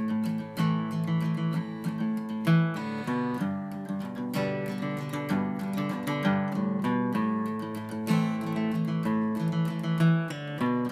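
Background music: acoustic guitar playing a run of quick picked and strummed notes.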